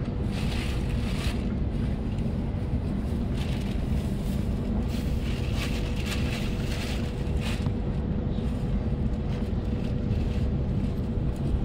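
Electric suburban train running at speed, heard from inside the carriage: a steady low rumble of wheels on track with a faint steady hum, and short bursts of hiss during the first seven seconds or so.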